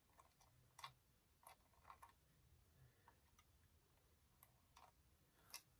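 Near silence with a handful of faint, scattered clicks: a tiny plastic toy figure being worked into the cockpit of a small plastic toy ship.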